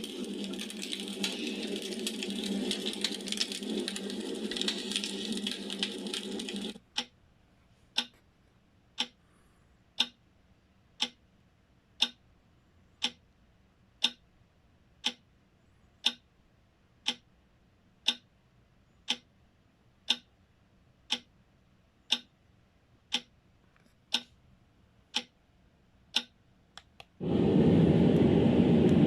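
A clock ticking once a second, about twenty sharp ticks. Before the ticking, a steady hissing noise cuts off suddenly about a quarter of the way in. Near the end, a louder, deeper steady noise starts abruptly.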